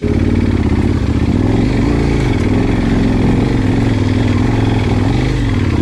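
KTM 1090 Adventure motorcycle's V-twin engine running, its pitch rising and falling with the revs.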